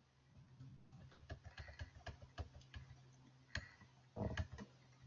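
Typing on a computer keyboard: a run of quick key clicks, with a louder pair of knocks a little after four seconds in, over a faint steady low hum.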